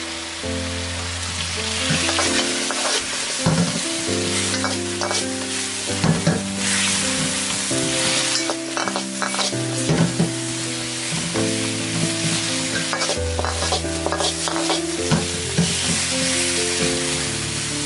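Chicken wings sizzling in oil and sauce in a wok, with a metal ladle clicking and scraping against the pan as they are stirred. Background music with held low notes plays underneath.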